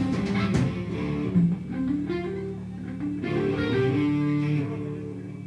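Live band music led by guitar, with held notes over a steady low drone; it grows quieter near the end as the playing winds down.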